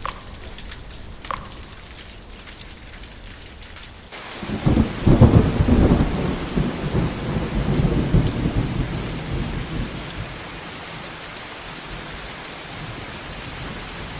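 Rain falling with a few distinct drips, then about four seconds in a sudden change to heavier rain hiss with a roll of thunder that rumbles for several seconds and fades, leaving steady rain.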